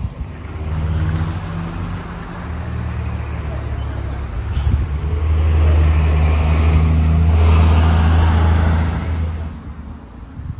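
Diesel engine of a transit bus running close by: a steady low hum that grows louder past the middle and fades near the end. There is a brief hiss of air brakes a little past four seconds in.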